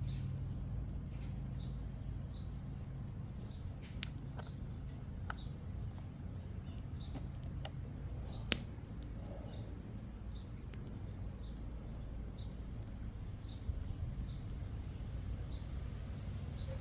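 Wind rumbling on the microphone around a small backyard charcoal and twig campfire, which gives a few sharp pops, the loudest about eight and a half seconds in. A bird chirps faintly about twice a second throughout.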